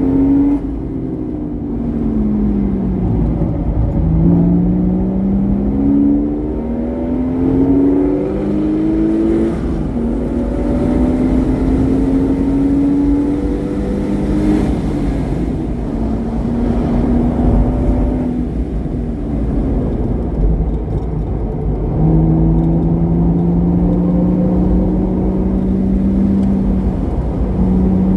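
Porsche Boxster S engine with a modified exhaust being driven hard on track. The engine note falls at first, then climbs through several gears with a short drop at each upshift, holds, eases off, and pulls again in the last few seconds.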